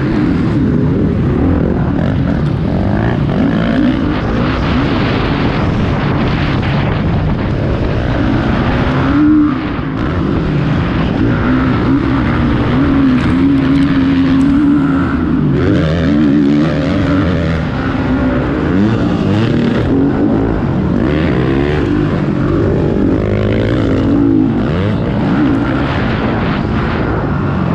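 Several motocross bikes racing, their engines revving up and down over one another without a break.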